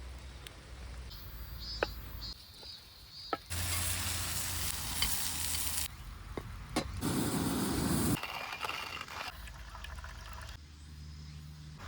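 Campfire cooking sounds: hissing and sizzling with scattered sharp crackles and clicks, changing abruptly several times. The hiss is loudest in the middle, with a low rumble just before it drops back.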